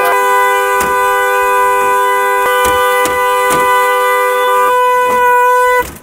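Lincoln Town Car's dual-tone horn blaring continuously, with a few sharp knocks over it. The lower note cuts off a little before the end, and the higher note about a second later.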